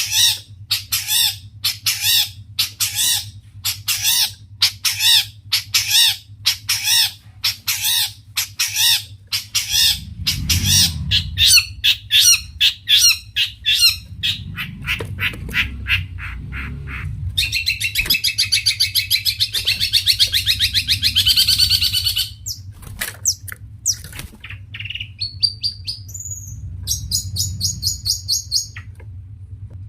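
Long-tailed shrike (cendet) calling hard: a long series of harsh, evenly repeated notes about two a second. A dense buzzing chatter follows for several seconds past the middle, and scattered calls and a short rattling trill come near the end. A steady low hum runs underneath.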